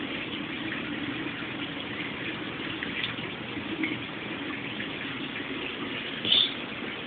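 Steady rush and splash of water circulating through a reef aquarium's plumbing, water running down into the sump and refugium under the stand. A brief, louder high sound about six seconds in.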